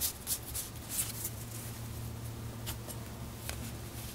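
Magic: The Gathering cards being flipped through by hand, one card slid from the stack at a time, with soft snaps and slides of card stock. A steady low hum runs underneath.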